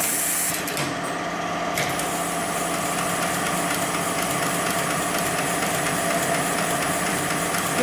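Hightex GLK700-6040 automatic programmable pattern sewing machine running steadily, stitching a pattern through a panel as its clamp frame is driven under the needle. A short hiss in the first second.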